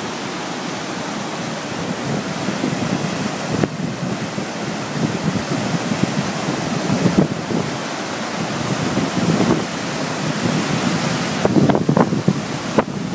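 Floodwater rushing over a stone weir and churning into white water below, the lake swollen by heavy rain; a steady rushing noise. Wind buffets the microphone now and then, most strongly near the end.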